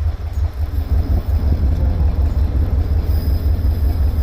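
A fishing boat's engine running, a loud steady low rumble with a regular throb.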